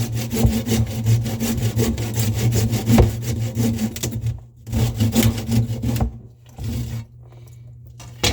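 A saw cutting through a glued sink drain pipe with rapid back-and-forth strokes; the sawing stops about four seconds in, resumes briefly, then stops again.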